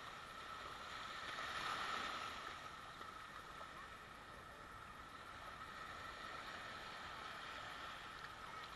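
Faint, steady wash of small waves lapping in shallow surf.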